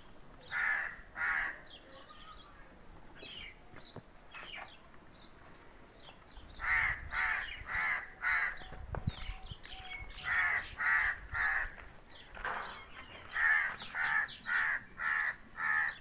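A crow cawing repeatedly, in runs of two to five short caws.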